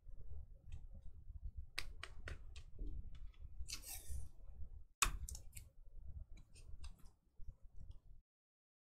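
Trading cards and clear plastic card sleeves being handled: a scatter of light clicks and taps, with a brief plastic rustle about four seconds in. The sound cuts off abruptly near the end.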